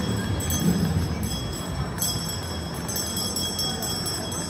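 Bells jingling over steady low background noise.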